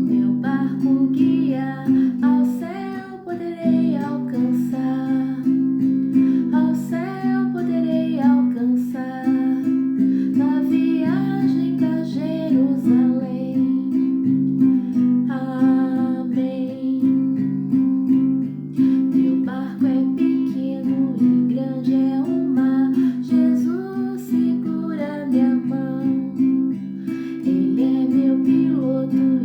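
Music: acoustic guitar played with strumming under a gliding melody line, with a singing voice.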